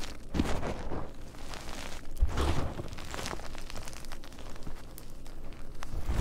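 Blocks of gym chalk being crushed and crumbled by hand, with irregular crunches and powder pouring back onto the heap; the heaviest crunch, with a dull thump, comes about two and a half seconds in.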